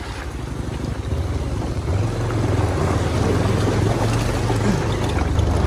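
Motorcycle engine running steadily while riding, getting louder about two seconds in.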